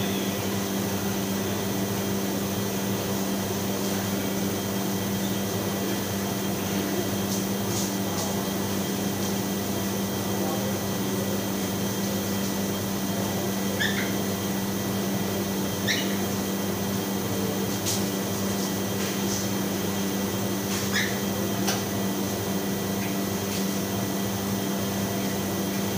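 Steady, loud hum of commercial kitchen machinery: the extraction hood's fan and the refrigeration units run without change. A few short, faint high squeaks and clicks come through the drone in the middle stretch.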